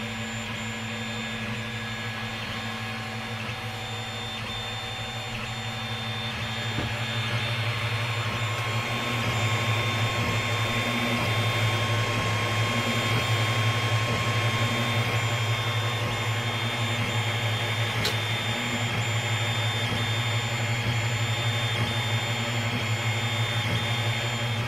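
TEVO Tornado 3D printer running a print: the steady hum of its cooling fans with the whirr of the stepper motors moving the print head as it lays down the first layer, growing louder about seven seconds in.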